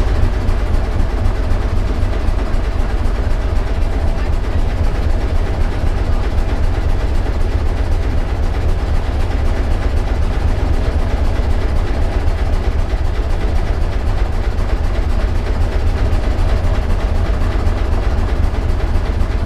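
A Barkasse's ship engine running steadily, heard inside the wooden cabin: a deep, even, rhythmic beat.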